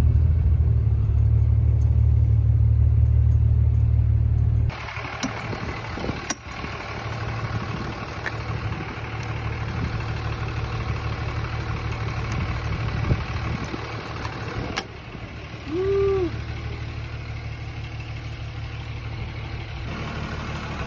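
Pickup truck engine running, heard from inside the cab as a steady low rumble that cuts off abruptly a few seconds in. Quieter outdoor noise follows, with a few sharp clicks as a key works a camper door lock, and a brief squeak later on.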